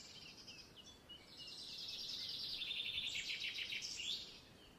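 Faint, high-pitched chirping from background wildlife: a short rapid chirp at the start, then a long, fast trill that swells from about a second in and fades out near the end.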